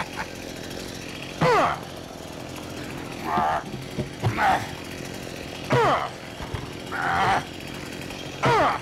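A large knife is stabbed again and again through the wall of a plastic bucket, about six times. Each stab is a sharp puncture followed by a short squeal falling in pitch as the blade scrapes through the plastic.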